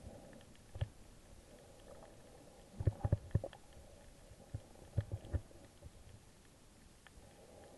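Muffled underwater sound picked up by a camera in a waterproof housing while snorkeling: a faint steady hum with short, low, dull thumps and knocks, one about a second in, a cluster around three seconds in and another around five seconds in.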